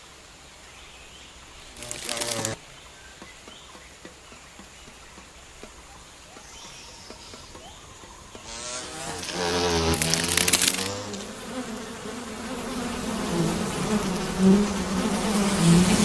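A flying insect buzzing, with a short buzz about two seconds in and a longer, louder buzz of wavering pitch that passes by around nine to eleven seconds in. A low, steady noise grows louder near the end.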